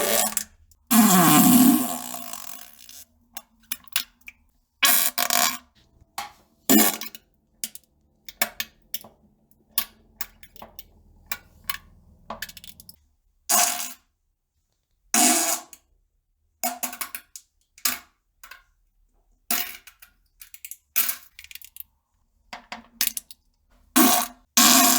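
A run of fart sounds one after another: a long one about a second in that drops in pitch, then many short, sharp ones separated by brief silences.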